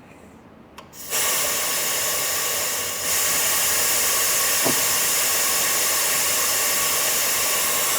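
Steady hiss of compressed air from the C299PRO tire changer's pneumatics as its lower helper tool is raised. It starts about a second in after a faint click and gets a little louder about three seconds in.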